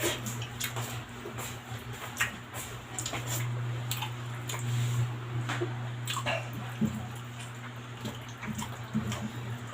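Close-miked eating: wet chewing and lip smacks from a mouthful of pork in sour soup, as a string of short, irregular clicks. A steady low hum runs underneath.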